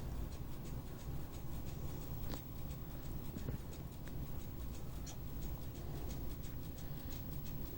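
A big domestic cat's low, steady rumble as it breathes while dozing, with faint scratchy ticks throughout.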